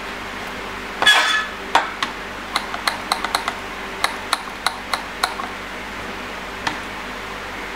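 Light clinks and clicks of small tools and a pump-top solvent bottle being handled on a workbench while cleaning a circuit board: a short rustle about a second in, then a dozen or so sharp clicks over about three seconds, over a faint steady hum.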